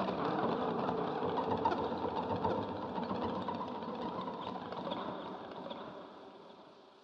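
Small vehicle engine running with a fast, even chugging that fades away over the last couple of seconds.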